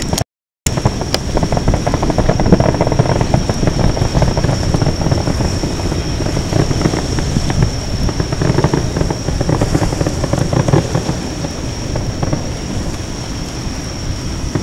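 Distant fireworks: a continuous rolling rumble of booms with crackle, swelling a couple of seconds in and again past the middle, over wind on the microphone and a thin steady high tone. The sound cuts out for a moment just after the start.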